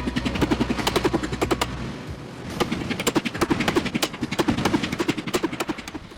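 Rapid, uneven run of sharp knocks, several a second, with a steady low hum under the first two seconds that then stops.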